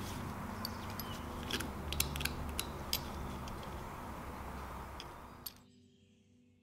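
Metal pick scraping and picking flaking teal paint out of ornate brass drawer pulls, with scattered sharp ticks and scratches of metal on metal. The scraping cuts off suddenly about five and a half seconds in.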